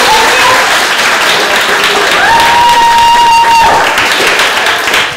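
Audience of children clapping and cheering, with one long high-pitched cheer rising in a little after two seconds in and held for over a second.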